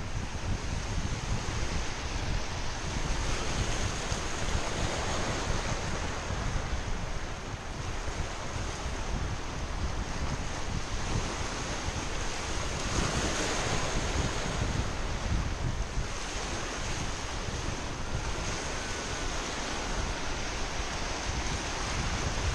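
Surf washing and breaking over shoreline rocks, swelling louder about halfway through, with wind buffeting the microphone in a low rumble throughout.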